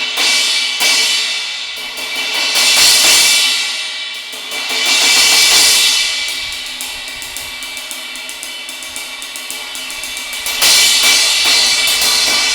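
Repaired Sabian 17-inch HHX Explosion crash cymbal struck repeatedly with sticks in a sound test, ringing bright. The playing swells up twice, with a fresh loud crash near the end. The crack has been smoothed out, and to the player it sounds good.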